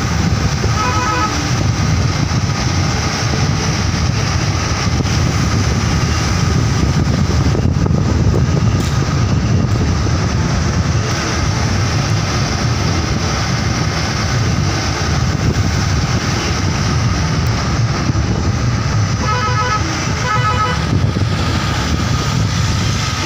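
A motor vehicle on the move, with a steady low rumble of engine and road noise. A horn sounds in quick repeated pulses at the start and again in two short bursts near the end.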